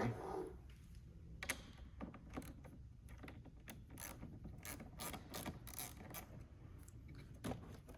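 Ratchet wrench clicking, a series of faint, uneven clicks, as the clamp nut on the negative battery terminal is loosened to disconnect the battery.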